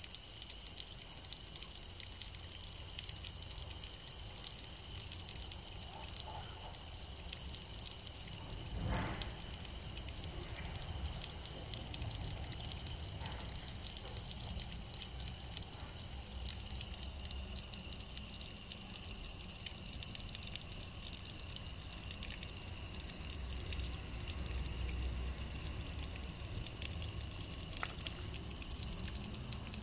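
Water trickling and dripping over a wet stone wall, a steady faint wash, with a single knock about nine seconds in.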